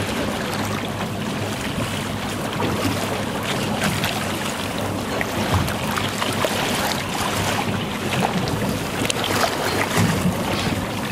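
Boat motoring slowly, its engine running under the rush and splash of water along the hull, where a striped marlin is held in the wash alongside.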